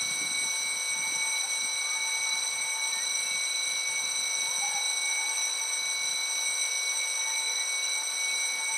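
Railway level-crossing warning signal sounding, a loud steady electronic ringing tone that switched on suddenly just before: the crossing has been triggered by the approaching train.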